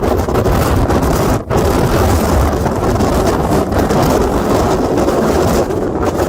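Category 4 hurricane eyewall wind buffeting the microphone: a loud, continuous rushing with heavy low rumble and a brief drop about one and a half seconds in.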